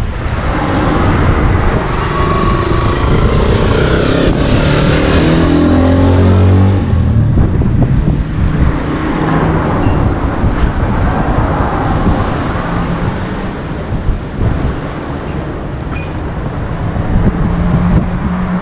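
Wind buffeting the microphone of a GoPro Hero 8 Black over steady street traffic. A motor vehicle passes in the first several seconds, its engine note falling slightly as it goes by.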